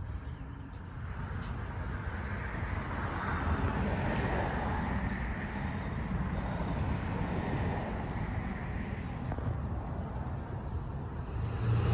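Road traffic: a vehicle passing on the street, its noise rising over the first few seconds and fading away near the end, over a steady low rumble of wind on the microphone.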